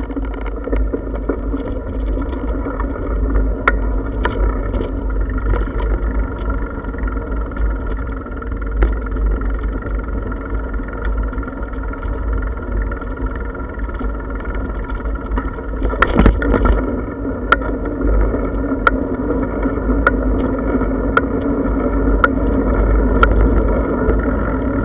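Bicycle rolling along a paved path: a steady rumble of tyres and wind on the microphone. About two-thirds of the way through, a sharp tick starts repeating roughly once a second.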